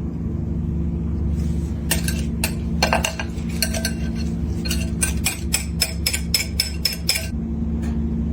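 Kitchen utensils and dishes clinking and tapping: scattered sharp clicks, then a quick even run of about five a second for a couple of seconds, over a steady low hum.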